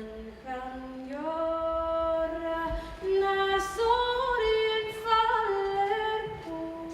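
A woman's voice singing a slow melody, holding long notes that step up and down in pitch.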